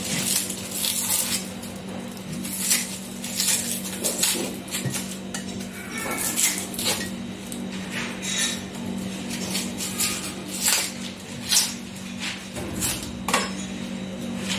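Knife cutting an onion on a board: irregular sharp knocks of the blade, about one or two a second, over a steady low hum.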